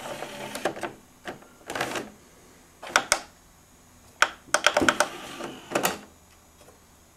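Scattered sharp clicks and taps from handling hard plastic parts, some in quick little runs of several clicks.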